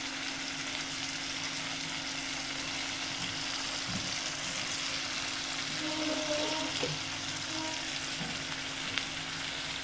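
Ground tomato-onion paste frying in hot oil in a steel kadai, sizzling and bubbling steadily while it is stirred with a metal spatula. A steady low hum runs underneath, and there is a single tick about nine seconds in.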